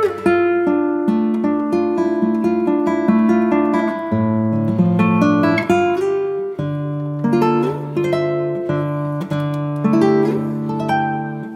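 Background music: acoustic guitar playing a continuous run of plucked notes and chords, with a few sliding notes.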